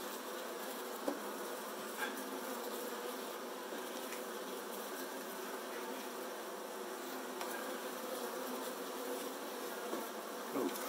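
Saskatraz honey bees buzzing in an open Layens hive, a steady hum. There are a couple of light knocks about one and two seconds in as the wooden frames are handled and pressed together.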